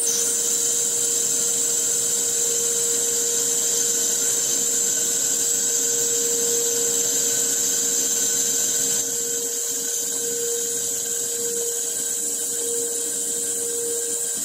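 CNC lathe running at about 400 RPM, turning a nylon bar with a carbide insert that peels off long continuous ribbon chips. There is a steady high-pitched motor whine over a lower steady tone, and it drops slightly in level about nine seconds in.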